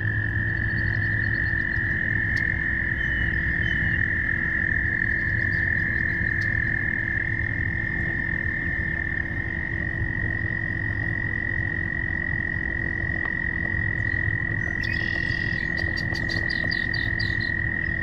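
Frogs giving their courtship calls in a pond: a long, unbroken high trill that holds almost level in pitch. About fifteen seconds in, a short flurry of faster, higher chirps joins it for a couple of seconds.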